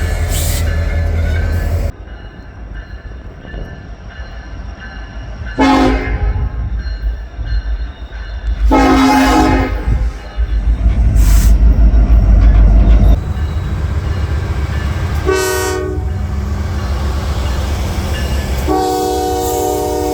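Locomotive horns sounding a series of blasts, each a chord of several steady tones: one held until about two seconds in, short blasts about six and nine seconds in, another near fifteen and a half seconds, and a long one starting near nineteen seconds. A heavy rumble of the passing train runs underneath, loudest between about ten and thirteen seconds.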